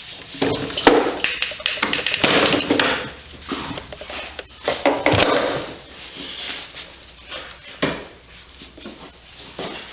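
Metal objects clattering, clinking and scraping as they are handled, with irregular knocks throughout and a sharp knock near the end.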